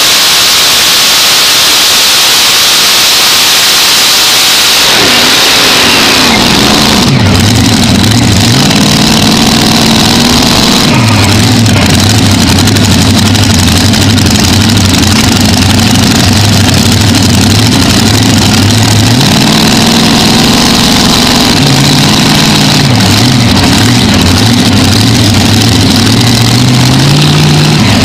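Unlimited-class pulling tractor's supercharged racing engine, very loud on board. It is at full power, then winds down about five seconds in, settles to a low, lumpy idle and is blipped up in revs a few times as the tractor rolls back.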